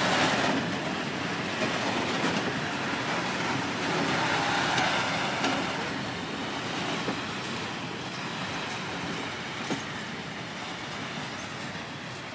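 Freight wagons rolling past on the rails, wheels rumbling with a few sharp clicks, the sound fading as the end of the train moves away.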